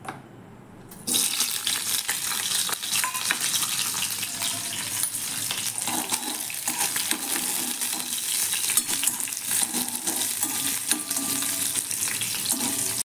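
Chopped large green chillies hit hot oil in a kadai about a second in, setting off a loud, steady sizzle of frying. A metal spoon clicks and scrapes against the pan as it stirs them.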